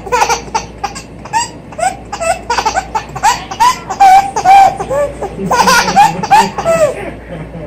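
A baby laughing in repeated quick bursts of high-pitched giggles, loudest about halfway through.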